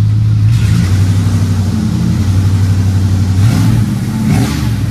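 1989 Dodge half-ton pickup's engine running with a steady low note, which shifts and rises about three and a half seconds in as it revs. The engine is still running rich.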